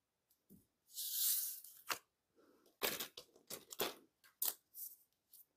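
Thin tracing paper rustling and crinkling as it is shifted and folded over a paper pattern to close a dart: a longer rustle about a second in, a sharp click just after, then a string of short crackles and scrapes.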